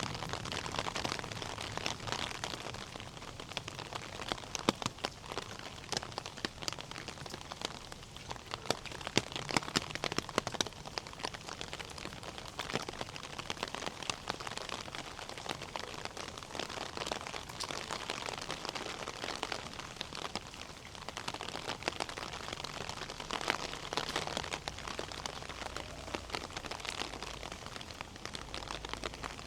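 Steady rain falling and pattering on surfaces, with many sharp drop hits scattered through it.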